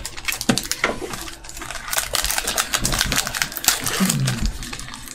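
Magic: The Gathering cards and booster packaging being handled and flipped through, a rapid run of crackles and clicks.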